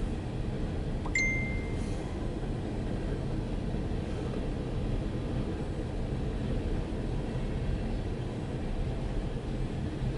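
Empty coal train cars rolling past with a steady low rumble, and one brief high ring about a second in.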